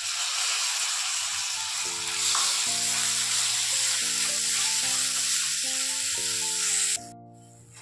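Chopped vegetables and tomato sizzling in hot oil in a steel kadai as they are stirred with a wooden spatula; the sizzle cuts off suddenly near the end. Background music with held notes comes in about two seconds in.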